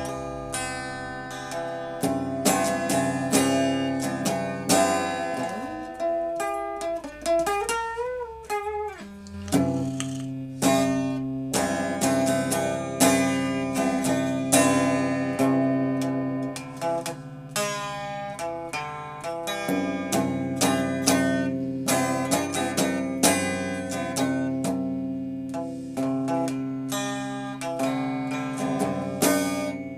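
Music played on a plucked string instrument: picked notes that ring and fade over held low notes, with one note bent up and down in pitch about eight seconds in.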